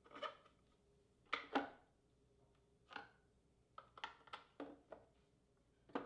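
Irregular light wooden knocks and clicks as plywood drawers and drawer fronts are handled and fitted, about a dozen taps with the loudest pair about a second and a half in.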